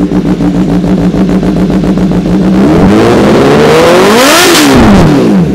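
Kawasaki ZX-10R's inline-four through an Arrow full-system exhaust, loud at idle, then given one throttle blip about two and a half seconds in: the revs rise, peak about four and a half seconds in, and drop back toward idle near the end.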